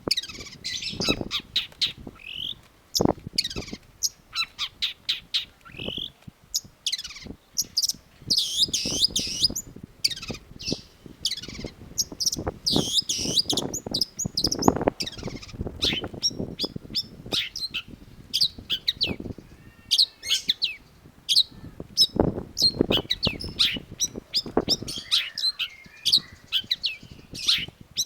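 Long-tailed shrike singing a fast, varied song of short, sharp chirps and quick whistled sweeps, with some harsher, rougher notes mixed in.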